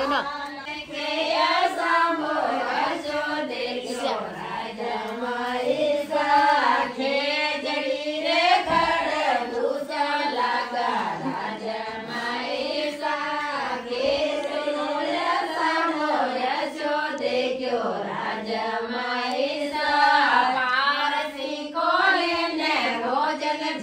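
Singing: a voice carries a melody with sliding, wavering pitch, without a break.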